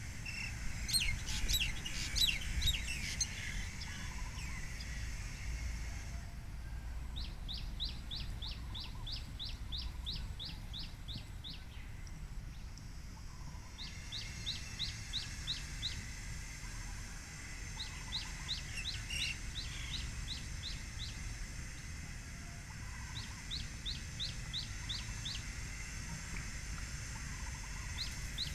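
Birds calling: a burst of mixed chirping in the first few seconds, then a bird repeating a series of short, high, falling notes, about three a second, in bouts of a few seconds with short gaps. A steady low rumble of wind on the microphone lies underneath.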